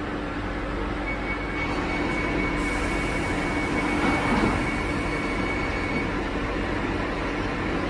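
Steady hum inside a London Underground Northern line carriage standing at a platform, with a thin, steady high whine for a few seconds. A short, slightly louder patch comes about four seconds in.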